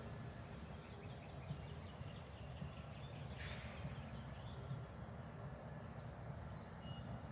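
Faint wild birds chirping and calling. A quick run of short high chirps comes first, then a brief harsh, rasping call about halfway through, then thin whistled notes near the end, all over a steady low rumble.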